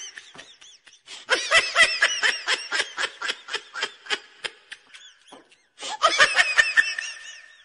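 A young woman laughing in fits of rapid giggles. One long run goes from about a second in to about five seconds, and a second burst comes about six seconds in.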